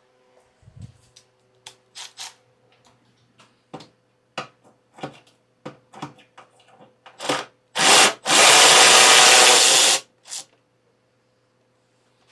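Cordless drill/driver backing fasteners out of motorcycle body plastics: two short trigger blips, then one loud run of about two seconds. Scattered light clicks and taps of tools and parts being handled come before it.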